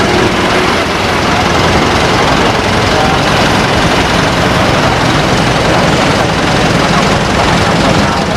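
Cessna 172 light aircraft's piston engine and propeller running steadily, a loud continuous drone with a low hum and no rise or fall in pitch.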